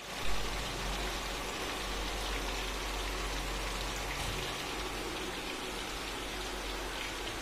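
Pieces of fish frying in hot oil in a pan, a steady dense sizzle.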